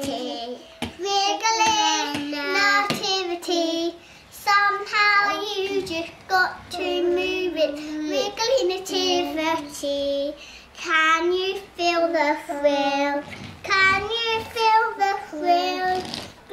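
A young child singing in a high voice, short phrases of held notes with brief breaks between them.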